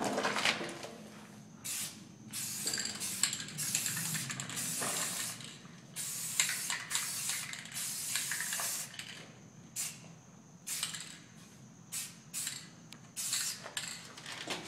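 Aerosol spray-paint can hissing in short repeated bursts, some a quick puff and some held for about a second, as paint is sprayed onto a wall.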